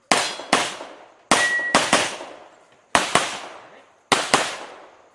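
Rock Island Armory Pro Ultra Match pistol in .40 S&W firing eight shots in four quick pairs, the two shots of each pair under half a second apart, each shot trailing off in an echo.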